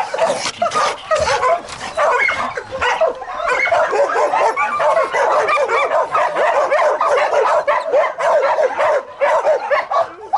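Many dogs barking and yipping at once, overlapping without a break.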